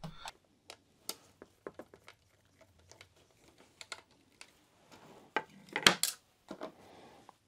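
Scattered small clicks and taps of hard plastic RC car chassis parts being handled and set down on a table, loudest about five to six seconds in.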